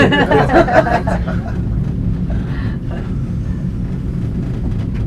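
Steady low hum and rumble inside a moving cable car cabin as it travels along the cable, with a man's voice talking briefly at the start.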